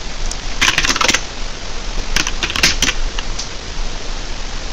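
Computer keyboard keystrokes: a quick run of clicks about half a second to a second in, then a few scattered clicks between about two and three and a half seconds, over a steady hiss.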